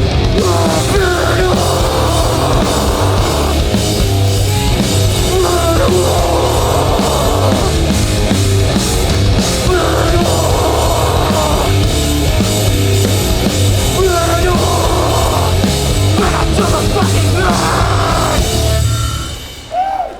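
Hardcore punk band playing live, loud, with distorted guitars, bass and drums and shouted vocal lines, until the song ends abruptly about 19 seconds in.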